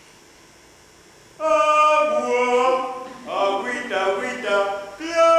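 A group of voices singing without accompaniment, with long held notes. The singing starts suddenly about a second and a half in, after a faint hiss.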